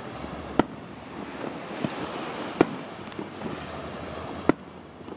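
Aerial firework shells bursting: three sharp bangs about two seconds apart. Between them runs a steady rush of sea surf and wind.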